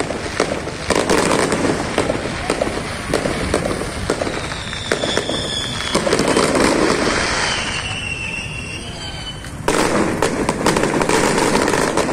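Aerial fireworks bursting overhead: sharp pops over dense crackling, with whistles falling slightly in pitch in the middle and a sudden loud new burst of crackling near the end.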